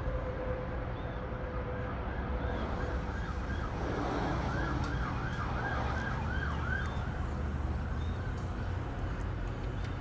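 A yelping, siren-like warble, rising and falling about three times a second from about three to seven seconds in, over a steady low hum.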